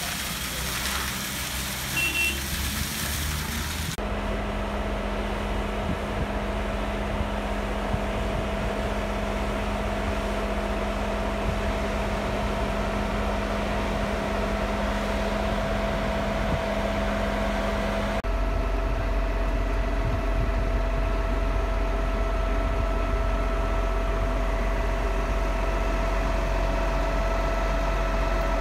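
Truck-mounted concrete boom pump's diesel engine running steadily at constant speed, powering the pump. The first few seconds are a noisy hiss from the pour, and the engine gets louder and deeper about two-thirds of the way in.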